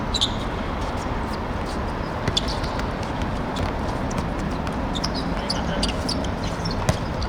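Ambient sound of a football match in play: a steady rumble of background noise with players' footsteps, a couple of sharp knocks of the ball being kicked, and short distant calls.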